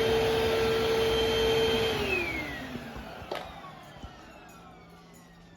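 Eureka vacuum cleaner running with a steady motor whine, then switched off about two seconds in, its whine falling in pitch and fading as the motor spins down. There is a single sharp click partway through the spin-down.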